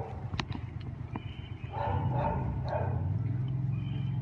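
Dogs at play, a Doberman and a Kerry Blue Terrier puppy, vocalising, with a few sharp clicks in the first second. A low steady hum comes in about two seconds in and continues.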